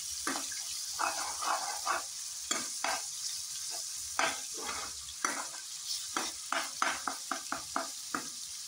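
Minced mutton frying in hot cooking oil in a kadhai, a steady sizzle, while a metal spatula stirs and scrapes the pan in short strokes that come quicker towards the end.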